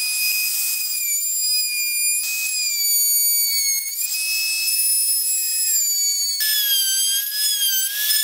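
Small Harbor Freight trim router running with a steady high whine while flush-trimming a mahogany edge. The pitch wavers slightly and drops to a lower note about six and a half seconds in.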